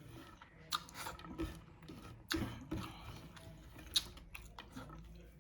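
A person chewing food close to the microphone, with irregular short crackling clicks.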